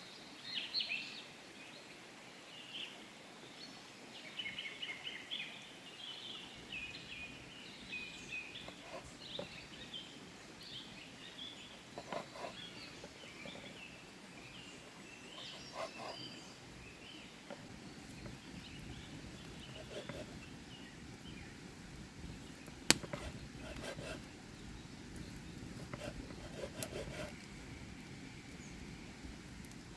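Small birds chirping in quick runs of calls through the first half, over a steady outdoor hiss. Later come a few scattered knocks and one sharp click.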